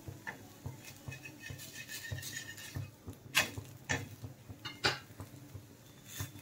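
A flat metal spatula clinking and scraping against an iron tawa as a roti is turned over. There are a few sharp clicks, most of them between about three and five seconds in.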